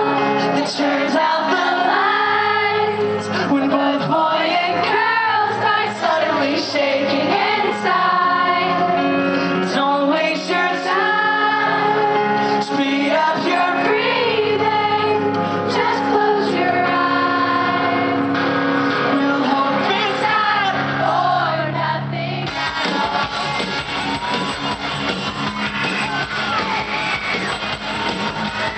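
Live pop-rock band playing a song, a singer's melody over sustained low notes. About 22 seconds in, the sound thickens into fuller, louder band rock with guitars.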